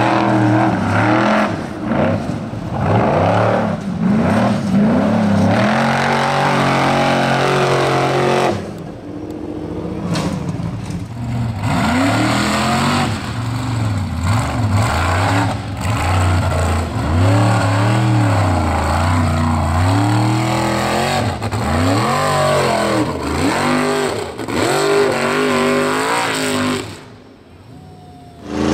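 Formula Offroad hill-climb buggies' high-horsepower engines revving hard, pitch rising and falling over and over as the throttle is worked on steep dirt hill climbs. The sound dips briefly near the end.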